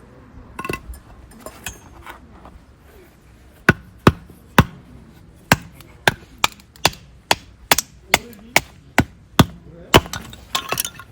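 A run of sharp, hard tool strikes, about two to three a second, starting about four seconds in, after a few softer knocks.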